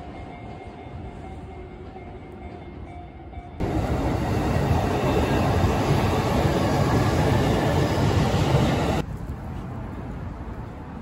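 Electric commuter train passing close by at a level crossing, a loud steady rumble of wheels on rails. It starts suddenly a little over a third of the way in and stops suddenly about four-fifths through.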